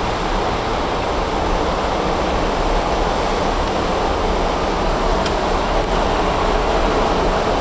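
Steady rushing noise on the flight deck of an Airbus A300-600 in flight: airflow over the airframe and engine noise, with a low rumble underneath.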